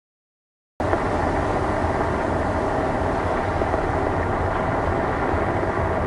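Steady low rumble with a rushing noise from a ferry under way, heard on its open deck. It starts abruptly about a second in, after a moment of silence.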